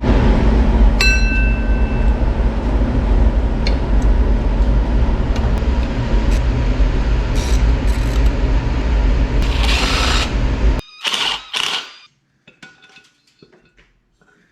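Handheld power tool running steadily for about ten seconds while removing bolts during an engine teardown. It cuts off suddenly, then gives two short bursts, followed by a few light clicks.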